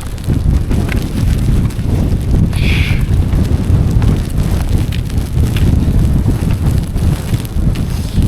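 Strong mountain wind buffeting the microphone: a loud, constant gusting rumble, with a short higher-pitched sound about two and a half seconds in.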